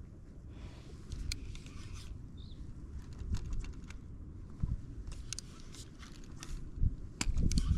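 Wind buffeting the microphone, a gusty low rumble that grows stronger near the end, with scattered small clicks and taps over it.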